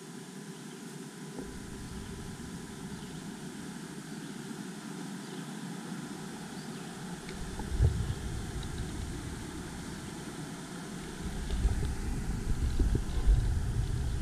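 Steady rushing of a river riffle. Low rumbles on the microphone come in about eight seconds in and again over the last few seconds.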